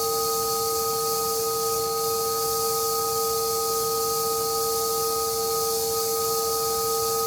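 EGO HPW3200 cordless pressure washer running steadily on its low setting through a 15-degree nozzle during a PSI test. Its electric motor and pump give a steady whine over the loud high hiss of the water jet.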